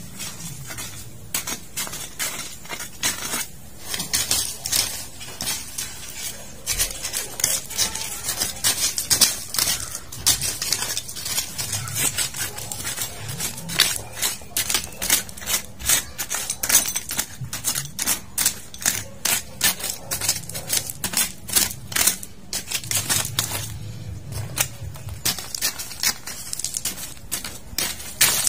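Weeding by hand in a garden bed: a steady run of crisp, irregular clicks and crackles, several a second, as weeds are torn from the soil and their stems snap.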